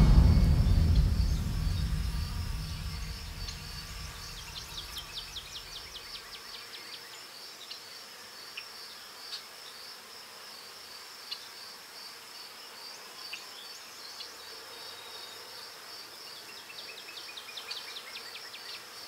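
A deep boom fades away over the first six seconds or so, leaving a steady high-pitched insect drone with regular pulsing and scattered quick chirps, a forest ambience.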